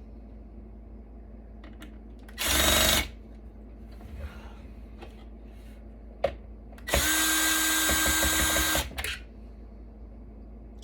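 Power drill run in two bursts: a short half-second burst about two and a half seconds in, then a longer steady run of nearly two seconds about seven seconds in. A few light clicks and taps of handling come between them.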